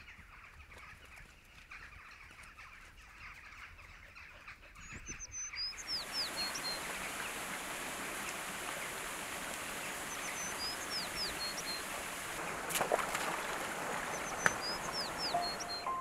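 A shallow stream running over a stony ford, a steady rushing hiss that begins about six seconds in, while a small songbird sings the same short descending phrase three times. Two sharp knocks come near the end.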